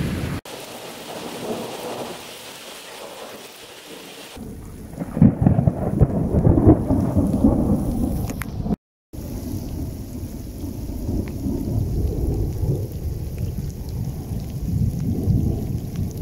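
Thunderstorm: rain hissing for the first few seconds, then loud low rumbling of thunder over the rain, swelling and fading. The sound cuts out briefly about nine seconds in.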